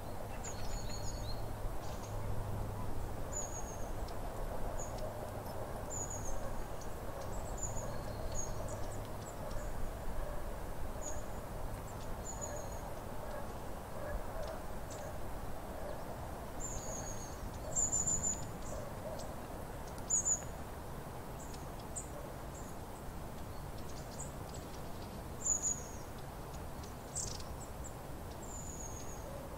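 Long-tailed tits giving short, thin, very high-pitched calls, scattered irregularly every second or so, some in quick runs. A steady low background rumble runs underneath.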